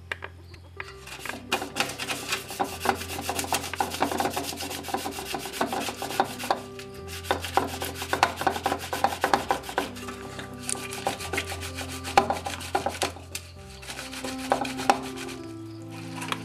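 Hand rubbing and crushing tomatoes against the perforated base of an aluminium colander: a rapid rasping scrub that pauses briefly about a third of the way in and again near the end. Background music plays underneath.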